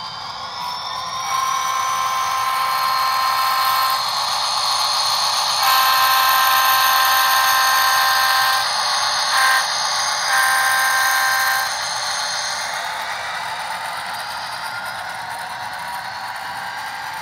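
Horn from the sound decoder of a Bachmann HO scale SD40-2 model locomotive, heard through its small onboard speaker over the model's diesel engine sound. The horn blows the grade-crossing pattern: long, long, short, long, a chord of several steady tones with no bass.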